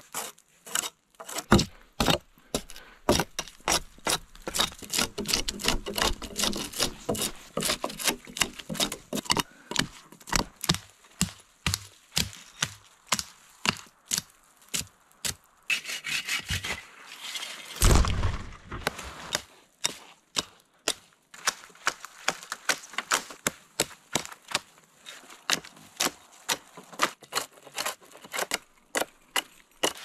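Dry dead branches and twigs cracking, snapping and rustling as they are broken and handled, in many quick snaps throughout, with one heavier thud a little over halfway through.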